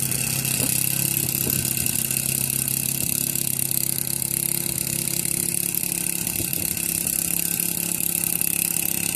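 Walk-behind gas lawn mower engine running steadily at a constant pitch as it is pushed across the grass, cutting.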